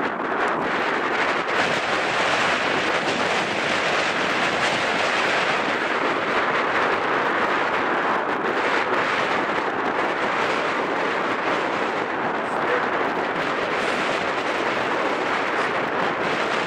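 Steady wind rushing over the camera microphone, a loud, even hiss with no breaks.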